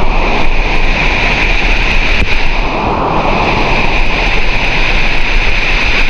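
Loud, steady rushing of a waterfall's cascading water close to the microphone, with a steady high-pitched hiss over it.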